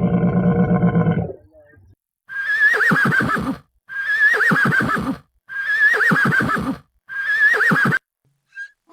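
Horse whinnying four times in a row, each neigh starting high and wavering down. Before the first neigh, a steady low-pitched sound fills about the first second and a half.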